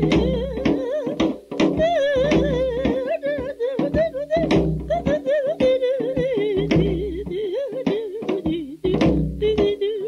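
Korean traditional-style song: a single voice sings with a wide, wavering vibrato over percussion, with sharp strikes and a deep beat about every two seconds.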